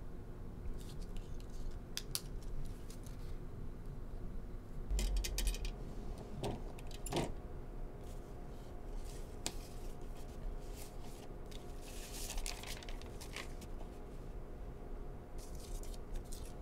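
Hands rummaging through a cluttered drawer: small objects clicking and rattling in scattered bursts, with paper rustling as an envelope is pulled out, over a faint steady hum.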